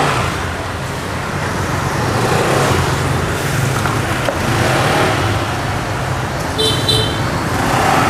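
Road traffic noise: a steady low engine rumble of passing vehicles, with a short high double beep about seven seconds in.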